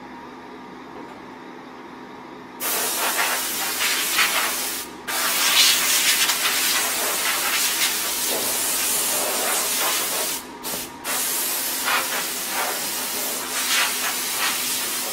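Compressed-air blow gun hissing in long blasts as it blows sawdust off freshly CNC-cut wooden trays. It starts about two and a half seconds in and breaks off briefly twice.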